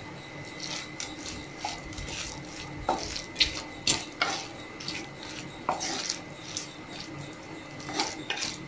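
A spatula scraping and knocking against an earthenware clay pot, stirring chopped brinjal into thick masala in irregular strokes.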